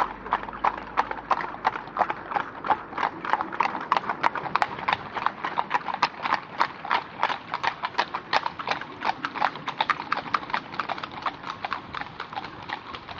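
Hooves of several horses clip-clopping in a steady, even stream of sharp strikes as a group of riders moves along together.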